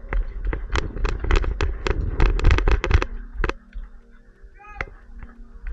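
Paintball guns firing in a rapid volley of about twenty sharp pops over the first three seconds, with one last shot about half a second later.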